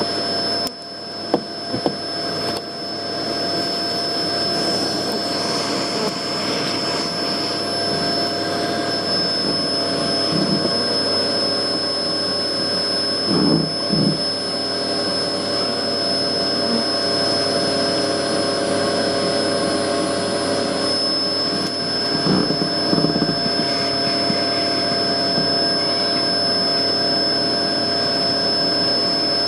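Vacuum cleaner running steadily with a high whine as it hoovers up honeybees, with a few sharp clicks about a second in.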